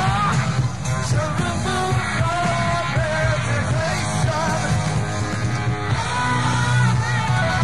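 Live hard rock band playing, a male lead vocal singing over electric guitars, bass and drums, in a lo-fi bootleg concert recording with the highs cut off.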